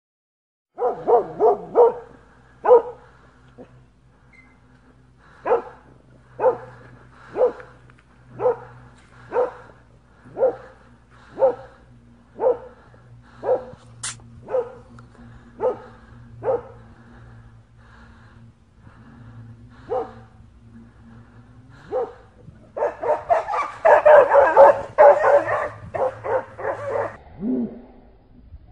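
A canine barking: a quick run of barks, then single barks about once a second, then a fast, dense flurry of barking near the end.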